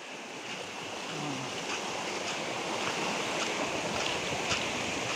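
Spring-fed stream rushing over rocks: a steady wash of water.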